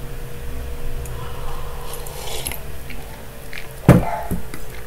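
Quiet room background with a faint steady hum, then one sharp click about four seconds in, followed by a couple of softer clicks.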